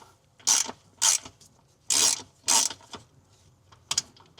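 Hand ratchet wrench being worked in about five short strokes, each a quick run of clicks, undoing a valve-cover bolt.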